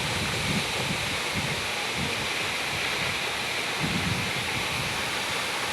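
Gega waterfall's falling water in a steady, unbroken rush, with uneven low rumbling underneath.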